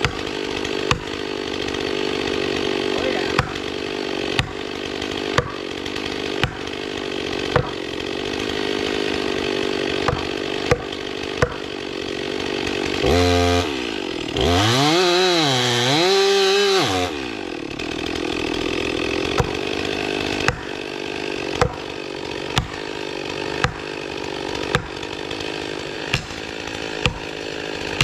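Chainsaw cutting steadily under load through a Norfolk pine trunk, with a sharp tick about once a second. About 13 seconds in the engine revs up and down, its pitch rising and falling twice, then settles back into the cut.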